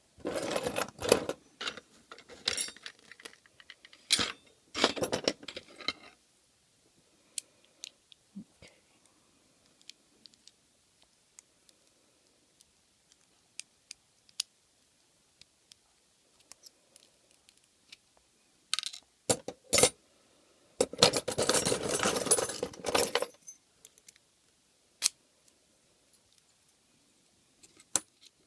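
Small metal lock parts, keys and picking tools clinking and jangling as a pin-tumbler lock is being gutted: two spells of clatter, one at the start and a longer, denser one about three quarters through, with single light ticks between.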